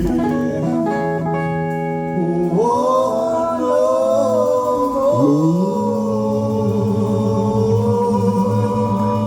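Live band of electric guitar, bass and drums with male voices singing long held notes. The voices slide up in pitch about two and a half seconds in and again about five seconds in, then hold.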